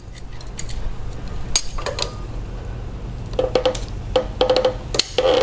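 Metal clicks and clinks from large tongue-and-groove pliers being opened and clamped onto a rubber hose at an engine oil cooler. A run of short squeaks follows as the pliers twist the stuck hose on its fitting.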